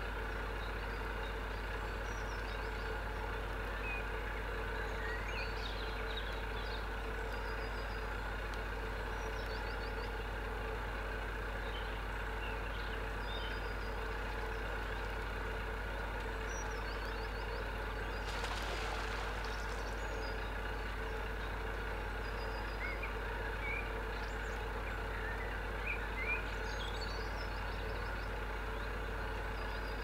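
Narrowboat engine running steadily nearby, a constant low drone. Faint high chirps come and go over it, and a brief rushing noise sounds a little past halfway.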